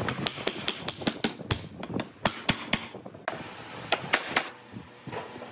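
Solid wooden blocks knocking and clacking together as they are handled and set down on a wooden bench: a quick run of sharp knocks, about five a second, then a short pause and a few more knocks about four seconds in.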